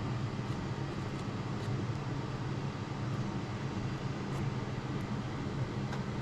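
Steady low hum with an even hiss: room background noise, with a few faint ticks.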